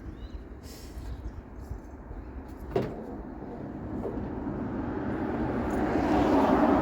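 A road vehicle passing by, its tyre and engine noise swelling to a peak near the end and starting to fade. A single sharp knock comes about three seconds in.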